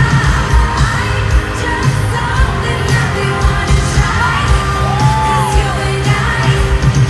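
Live pop concert: a female singer singing into a microphone over a loud band with heavy bass. About four seconds in she holds a long note that bends up and then falls away.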